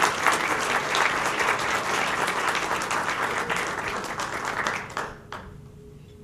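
Audience applause, dense clapping that fades out about five seconds in, followed by a single short knock.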